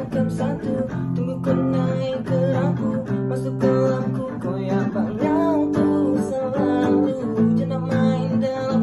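A Malay song: acoustic guitar strumming under a voice singing.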